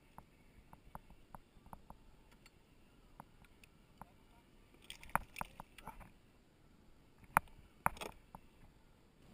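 Handling a small fish and fishing tackle on a plastic kayak: scattered light clicks and ticks, a cluster of louder clicks about halfway through, and two sharp knocks on the hull near the end.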